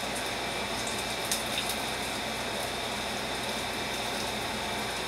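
Steady sizzling of hot cooking oil frying scallion, thyme and garlic on the stove, with a few light clicks about a second and a half in.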